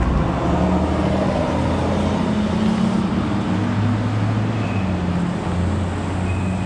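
2008 Toyota Sienna's V6 engine idling with a steady low hum.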